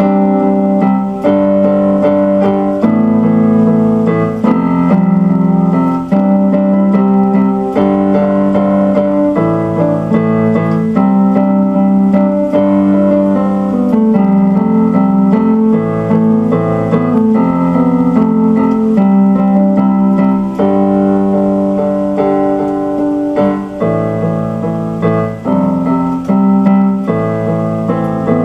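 Instrumental keyboard music with a piano sound, held chords changing every second or two.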